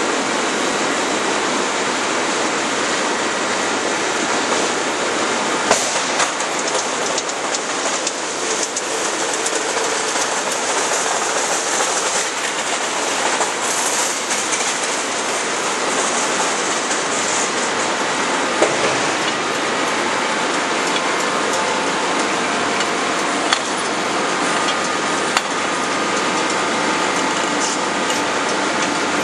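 Steady forge-shop machinery noise, an even hiss and rumble, with a few light metallic clanks. No hammer blows.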